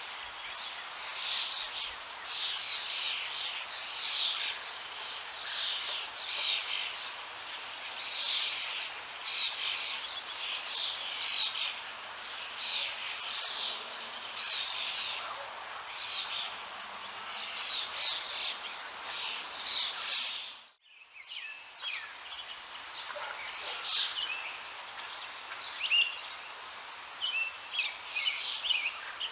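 Many birds chirping and singing over a steady background hiss, with a brief dropout about two-thirds of the way through before the birdsong resumes.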